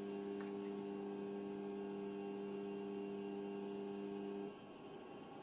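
Steady mains hum from the bench power supply driving the IMU heater at about 5 amps. It cuts off suddenly about four and a half seconds in, as the temperature controller switches the heater off on reaching its set point.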